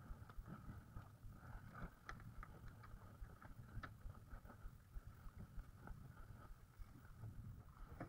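Near silence: faint low wind rumble on the microphone, with scattered small clicks and taps.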